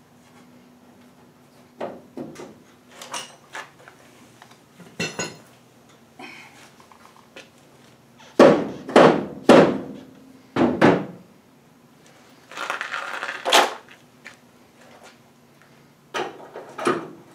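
Scattered metal clanks and knocks of hand tools and front-suspension parts being handled and fitted, with a run of loud knocks from about eight to eleven seconds in, followed by a longer rattling scrape.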